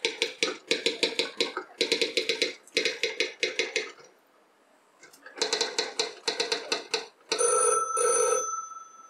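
Telephone bell ringing in short, rapid trilled bursts. It stops for about a second some four seconds in, then rings again. Near the end the ringing is louder, with a steady high tone through it.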